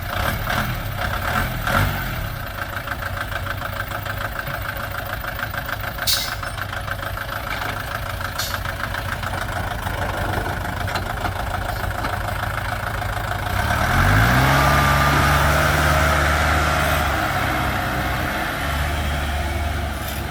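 Diesel engine of a loaded three-wheeled công nông running with a fast, even chugging. About 14 seconds in, a louder, deeper engine note climbs in pitch as it revs up, then holds steady.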